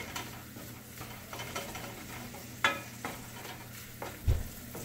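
Wooden spatula stirring and scraping mushrooms and onions in a stainless steel skillet, with irregular knocks of the spatula on the pan and a soft sizzle of butter underneath. A louder knock comes about two and a half seconds in, and a low thump near the end.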